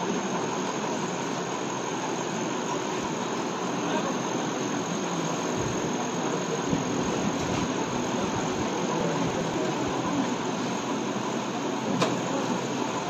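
Steady rushing noise with a faint steady whine through it, and a single sharp click about twelve seconds in.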